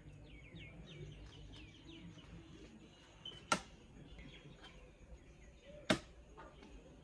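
Small birds chirping faintly: a quick run of short, falling chirps over the first two seconds or so, then quieter. Two sharp knocks come about 3.5 and 6 seconds in.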